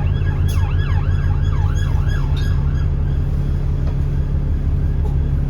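Steady low drone of an Alexander Dennis Enviro400 double-decker bus's diesel engine, with an emergency vehicle's siren yelping in quick rising-and-falling sweeps through the first two and a half seconds, then fading out.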